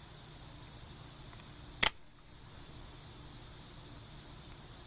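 Steady chirring of crickets, broken about two seconds in by one sharp, loud snap from the spring-driven mechanism of a 1980s ONYX out-the-front switchblade.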